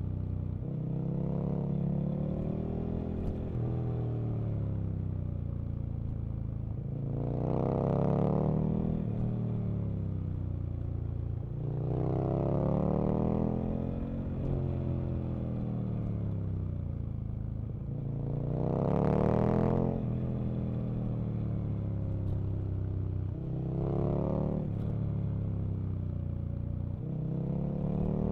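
Aprilia RSV Mille RP's 998 cc V-twin engine on the move, revving up through the gears and dropping back off the throttle again and again, with the loudest pull about two-thirds of the way in.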